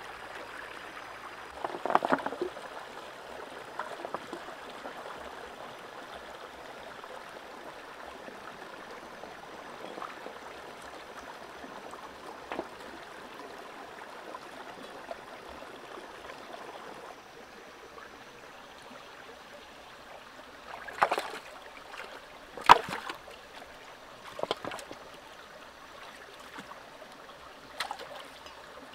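Shallow rocky stream flowing steadily, with short splashes from hands and feet working in the water: one cluster about two seconds in, and several more near the end.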